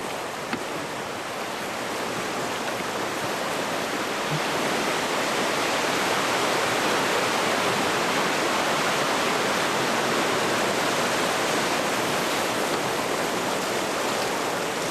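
Rushing water of river rapids, a steady rush that grows louder about five seconds in and stays loud.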